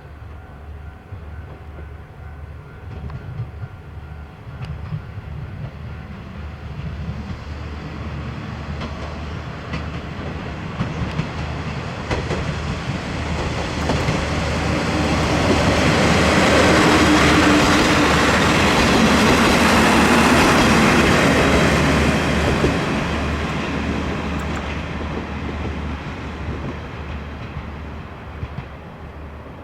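A Kanto Railway Joso Line diesel railcar approaching and running past. Its wheels click over the rail joints. It is loudest from about 16 to 22 seconds in, then fades away, over a steady low hum.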